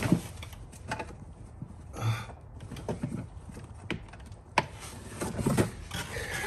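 Scattered clicks and knocks of hands rummaging among plastic parts and wiring deep in a car's engine bay, with one short rustle about two seconds in.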